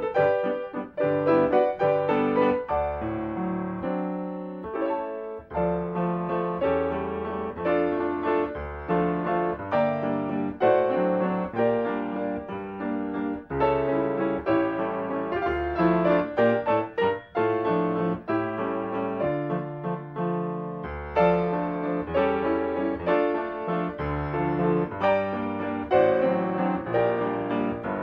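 Solo piano music, a silent-film accompaniment played as a quick run of notes and chords.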